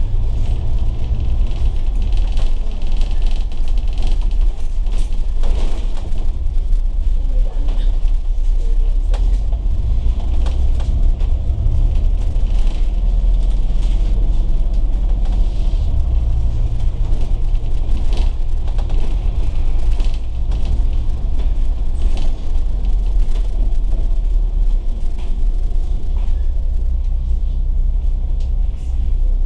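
Volvo B9TL double-decker bus under way: the steady low rumble of its six-cylinder diesel and drivetrain, its note shifting a few times, with scattered knocks and rattles.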